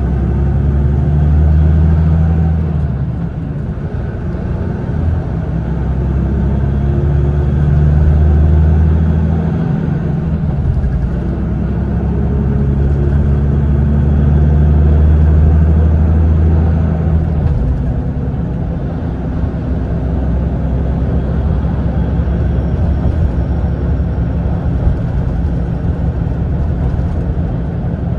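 Mitsubishi Fuso Aero Ace coach heard from inside the passenger cabin on the move: a low diesel engine drone over steady road and tyre noise. The drone swells and eases three times, then runs evenly for the rest of the time.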